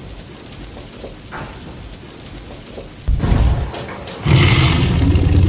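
Film sound effects from a Tyrannosaurus scene: a heavy thud about three seconds in, then from about four seconds in a loud, low, sustained dinosaur growl.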